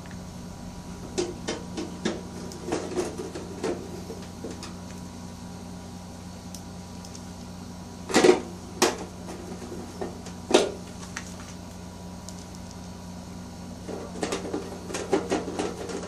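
Screwdriver driving screws into a sheet-metal panel board cover, heard as scattered clicks and light metallic knocks in small clusters, the loudest about halfway through, over a steady low hum.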